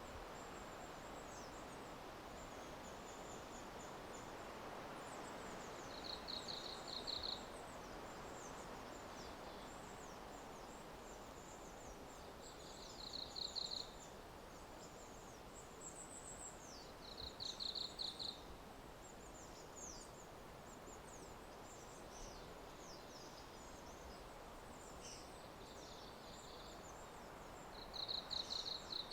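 Forest ambience: a steady soft hiss under high, thin bird calls, with a short, rapid pulsed trill, probably from a bird, repeating about five times, every few seconds.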